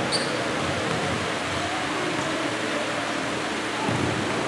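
Steady hiss of background noise in a basketball gym during a game, with faint voices in the mix and a brief high chirp near the start.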